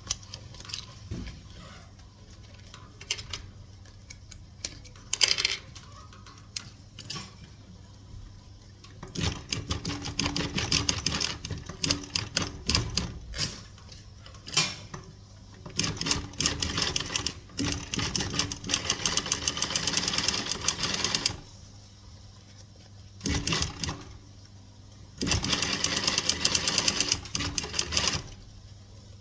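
Sewing machine stitching in four runs of rapid, even needle strokes, each a few seconds long, with short pauses between. Scattered light clicks and handling sounds come before the first run.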